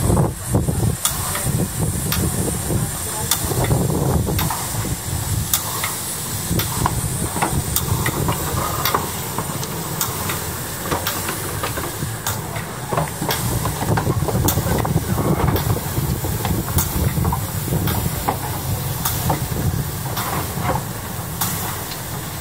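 Narrow-gauge steam train running, with a steady low rumble and hiss and sharp clicks roughly once a second.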